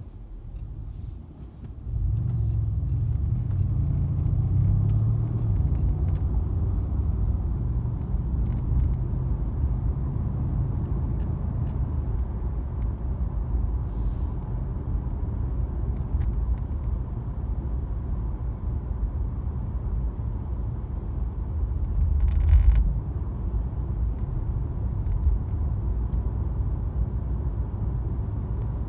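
Mercedes-AMG C63 S (W205) heard from inside the cabin while driving: a steady low rumble of engine and road that gets louder about two seconds in. Scattered faint clicks and ticks run through it, the dashboard screen rattling.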